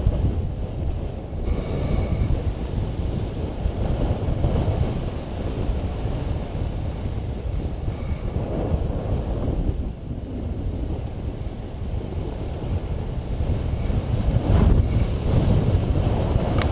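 Wind rushing over an action camera's microphone during a tandem paraglider flight: a steady low buffeting rumble, growing a little stronger near the end.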